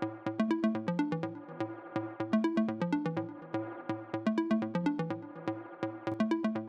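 Electronic music with a steady beat and a repeating bass line.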